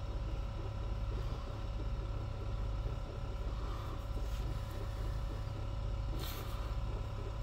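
Fossil-preparation scribe running with a steady buzzing hum as its tip works the shale at the edge of a fossil leaf. A brief hiss comes about six seconds in.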